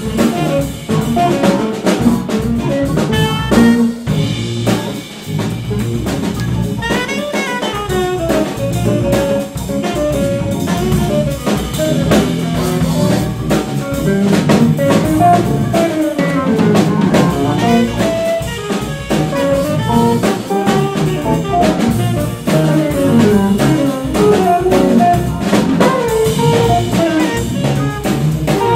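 Live jazz ensemble playing: a tenor saxophone carries a bending melodic line over piano, electric bass, hollow-body electric guitar and a drum kit.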